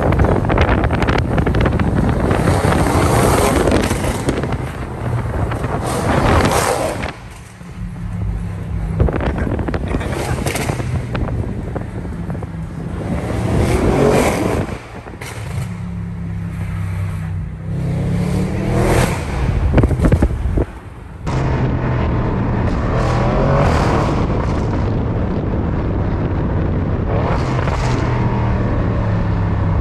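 Audi RS6 Performance's twin-turbo V8 and loud exhaust revved hard again and again while the car creeps through traffic, about five times in the first twenty seconds. Each rev rises in pitch and then drops off sharply; between the revs the engine runs steadily at low revs, and a few lighter revs follow later.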